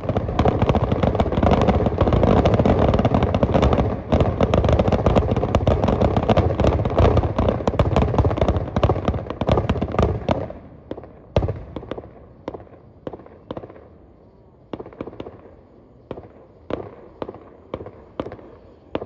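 Fireworks going off: a dense run of rapid bangs and crackling for about ten seconds, then thinning to separate sharp pops about once a second.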